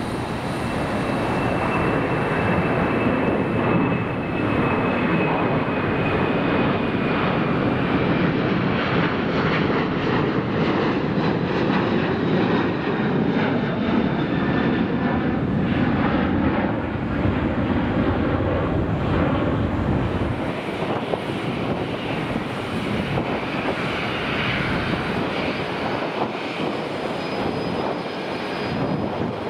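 Boeing 737-900ER's CFM56 turbofans at climb power as the airliner passes overhead: a steady jet rumble with a faint fan whine that slides slowly down in pitch. In the last few seconds a quieter, more distant jet hum comes from an Airbus A340-600.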